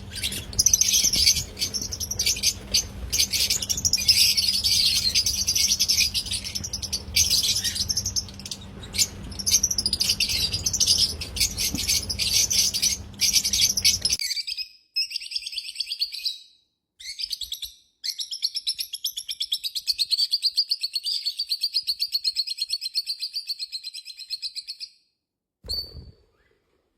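Lovebirds chirping in a rapid, high-pitched chatter. A low background hum underneath cuts off abruptly about halfway through. The chatter continues in quick pulses and stops shortly before the end.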